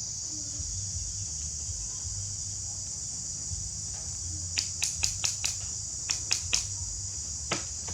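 Steady high-pitched chirring of insects over a low hum. About halfway in, a quick run of about ten sharp clicks, and one more near the end.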